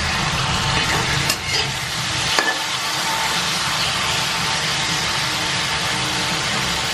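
Cubes of tofu sizzling as they fry in hot oil in a pan, while a spatula stirs and scrapes them. A few sharp taps of the spatula against the pan come in the first couple of seconds.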